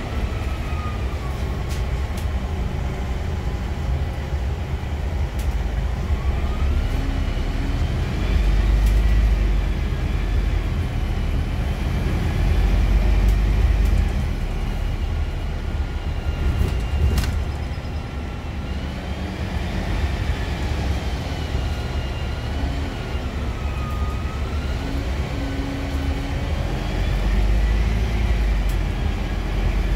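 Scania Citywide II LF CNG city bus under way, heard from inside the passenger cabin: a loud low engine and road rumble that swells and eases as the bus speeds up and slows. Over it a drivetrain whine glides up and down in pitch. One sharp click comes about two-thirds of the way through.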